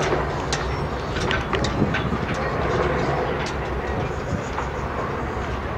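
Low, steady rumble of ships' diesel engines as tugboats move a freighter, with scattered sharp clicks and knocks over it.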